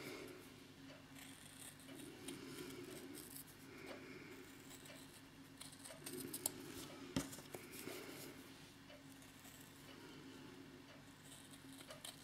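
Small Hemline hobby scissors snipping quietly through 1 mm wool felt in a run of short, soft cuts, with one sharper click about seven seconds in.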